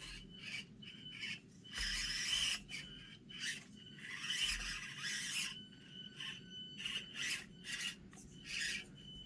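SCX24 micro RC crawler's small electric motor and gearbox whining in short stop-start bursts of throttle, with scraping and scrabbling as it crawls over rock and dirt.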